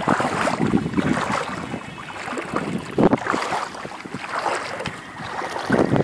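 Small sea waves lapping and splashing at the sandy water's edge, rising and falling in uneven surges.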